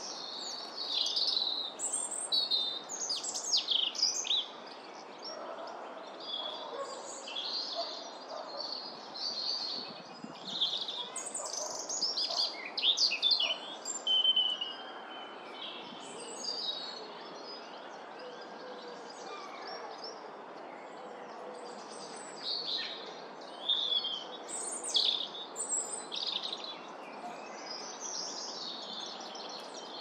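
Small birds chirping and calling in quick, varied bursts, with a quieter stretch past the middle, over a steady outdoor background noise.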